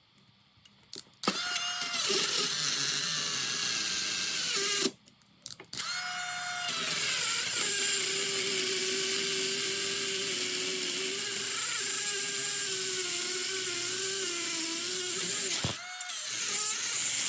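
Cheap Dremel rotary tool with a thin cutoff wheel grinding into a laminated steel padlock. Its motor whine wavers as the wheel bogs down in the cut, and it drops out abruptly to near silence a few times.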